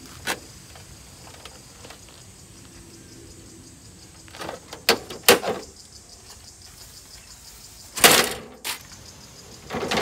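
Plastic box fan being handled and taken apart: a few sharp plastic knocks and clicks, with a louder harsh clatter about eight seconds in.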